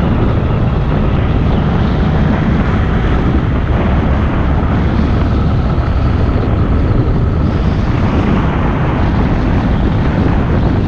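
Steady, loud wind rush over a helmet-mounted microphone, with a motorcycle running underneath it as the bike rides along at road speed.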